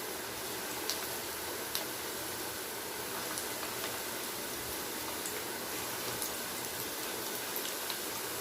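Chicken kofta balls frying in oil: a steady sizzle with a few small pops scattered through it.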